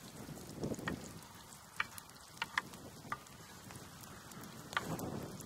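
Chopped onion sizzling in a hot cast-iron frying pan, a steady frying hiss with scattered sharp pops.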